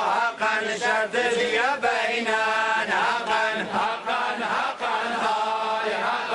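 Several voices chanting together in a slow, held, melodic devotional chant, the notes sustained with a wavering pitch.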